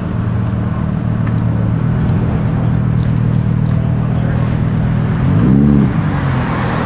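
Lamborghini Huracán EVO's V10 engine running at low revs as the car crawls forward, with one short rev that rises and falls a little over five seconds in.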